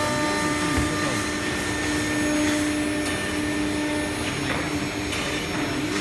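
Wood-panel CNC router running, its spindle holding a steady whine over a continuous hiss, with a few short clicks along the way.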